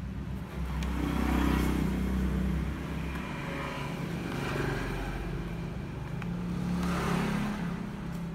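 Motor vehicle engines running, swelling louder twice, about a second in and again near the end, like traffic passing by.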